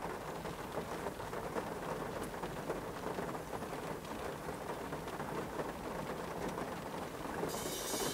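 Steady rain falling, an even hiss that grows brighter in the last moment.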